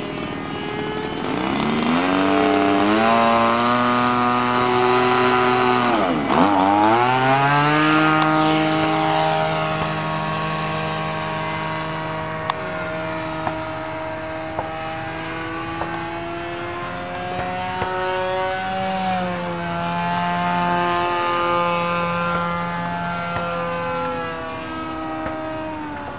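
26 cc two-stroke engine of a large radio-control model airplane throttling up for the takeoff run, its pitch climbing over the first few seconds. About six seconds in the pitch drops sharply and comes back up, then the engine runs steadily at high speed in flight, rising and falling a little.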